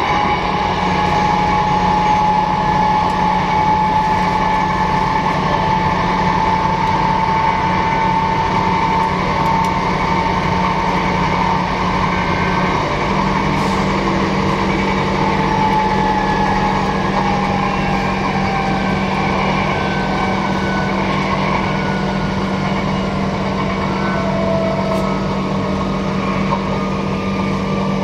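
Transperth A-series electric multiple unit heard from inside a passenger car while running: a steady rumble of wheels on track under a constant hum, with the thin whine of the traction motors. The whine rises slowly in pitch, then falls over the last several seconds as the train slows for the next station.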